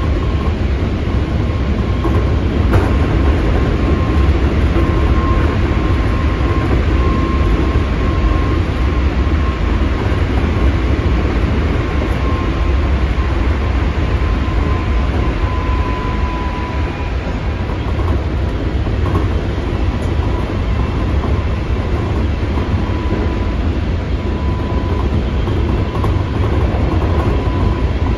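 Keikyu 600 series electric train with Toyo GTO-VVVF drive running at speed, heard from inside the car: a steady rumble of wheels on rail with a thin whine holding one pitch throughout. Partway through, the train passes through a tunnel.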